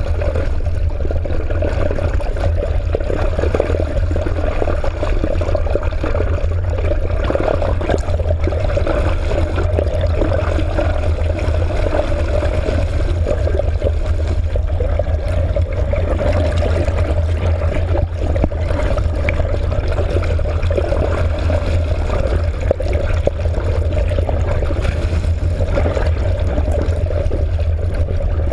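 Steady rush and gurgle of water streaming past a camera held underwater as it moves through the sea, over a constant low rumble.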